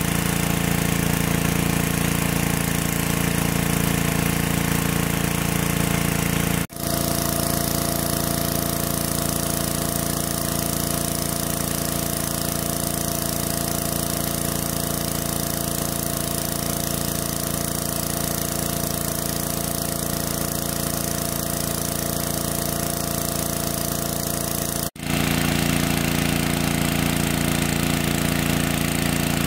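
Engine of a large water pump running steadily with a constant hum. The sound cuts out abruptly for an instant twice, about a quarter of the way in and a few seconds before the end.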